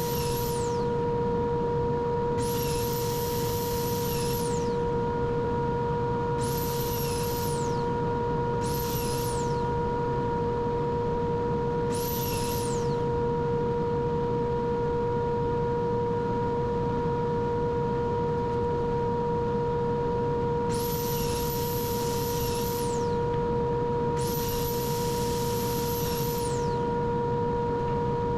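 A shop machine running with a steady hum, while a high-pitched whine comes and goes in spells of one to three seconds, about seven times.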